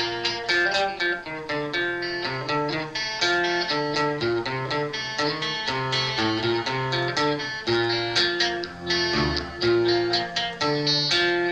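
Instrumental break in a song: a plucked guitar plays a quick melody of short notes over a bass line, with no singing.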